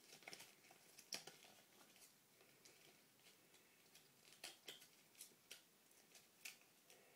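Near silence broken by a few faint, scattered clicks and light rustles, from small plastic toy parts and packaging being handled.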